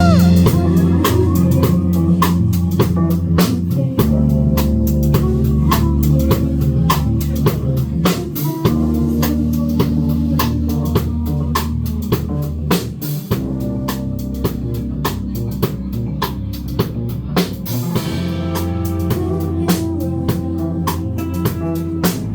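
A live band playing an instrumental passage: a drum kit keeps a steady beat under guitar, over deep bass notes that change every few seconds.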